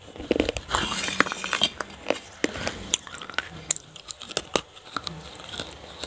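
Close-up biting and chewing of baked clay pieces coated in wet clay paste: sharp crunches with wet mouth sounds, a dense run of crackling crunches about a second in, then scattered single crunches.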